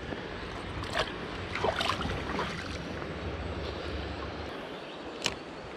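Steady rush of shallow river water with a few splashes in the first two seconds as a brown trout is let go from the hand into the current. A low rumble runs under it and stops about four and a half seconds in; one sharp click near the end.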